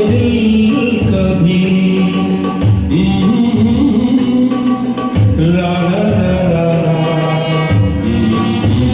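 Ghazal karaoke backing music with a steady beat, and a male singer holding long, drawn-out sung notes over it.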